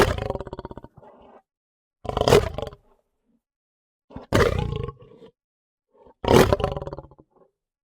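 Lion roaring: four short, gruff roars about two seconds apart, each loud at the onset and trailing off quickly.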